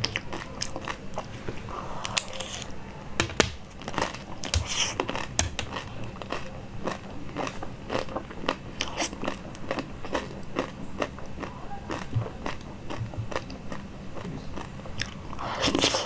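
Close-miked eating: a person biting and chewing, a steady run of small sharp mouth clicks and crackles, with a longer, louder bite near the end.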